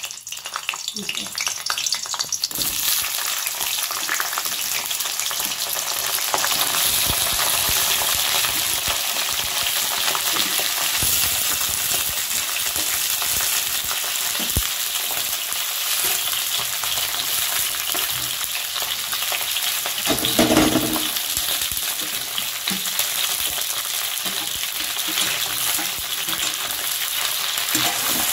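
Pieces of pointed gourd sizzling in hot oil in a wok, the sizzle building over the first couple of seconds as the pieces go in. A metal spatula stirs and scrapes them, with occasional clicks.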